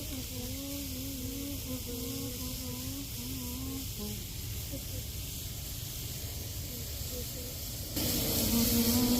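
Steady hissing sizzle of chicken cooking over an outdoor grill fire, with a faint wavering melody underneath. About eight seconds in, the hiss suddenly gets louder.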